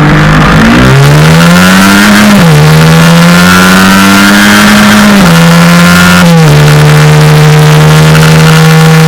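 Loud Suzuki GSX-R150 single-cylinder engine through an R9 GP SS racing exhaust with the dB killer removed, pulling away and accelerating. The pitch climbs, then drops sharply about 2.5 s, 5 s and 6.5 s in as it shifts up through the gears, and settles near the end.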